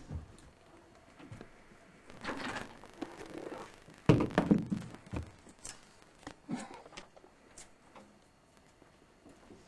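Thuds, knocks and scuffs of a performer's feet and body on a stage floor in a small room, with one loud thump about four seconds in and a few lighter knocks after it.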